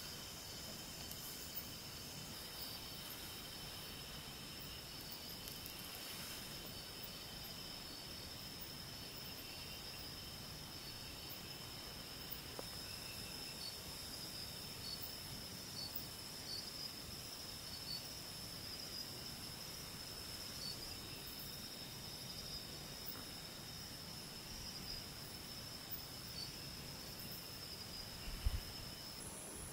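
Night insects chirring in a steady, continuous high chorus, with a brief low thump near the end.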